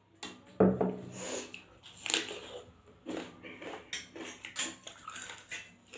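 A mug knocks down onto the table about half a second in, then close-up eating sounds follow: chewing, mouth clicks and crunches, with small clinks from the steel plate.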